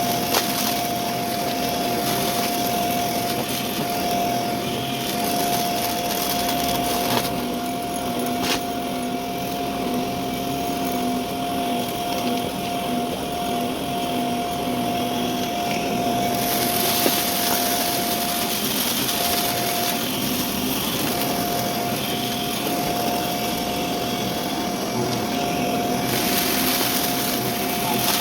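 Vacuum cleaner running with its brushroll on, a steady motor whine over a constant hiss. For about ten seconds past the middle the hiss grows brighter, then settles back.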